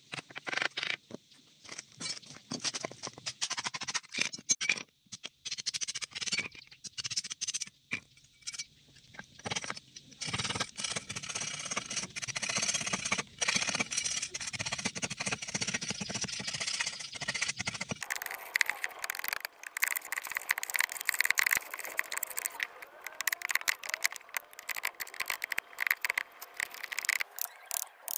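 Woodworking hand tools scraping and shaving wood in quick, repeated strokes, starting with a knife whittling a wooden piece. About two-thirds in, the strokes turn denser and hissier.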